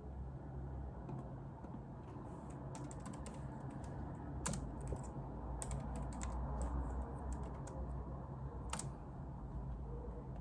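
Typing on a computer keyboard: irregular runs of keystrokes that start about two seconds in and stop near the end, over a steady low hum.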